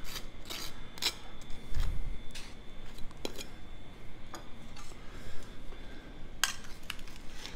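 Table knife scraping and tapping as blue cheese is spread on a toasted ciabatta bun, with scattered light utensil clicks and a dull bump about two seconds in. Near the end come a couple of sharp metallic clacks as kitchen tongs are picked up.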